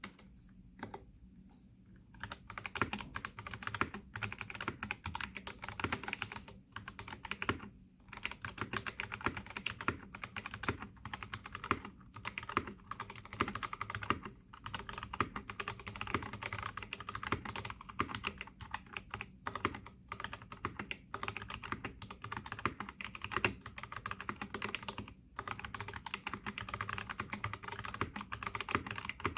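Typing on a Keydous NJ68 mechanical keyboard with Kailh Box Brown switches and PBT keycaps. A few separate keystrokes come first, then steady fast typing from about two seconds in, with only short pauses.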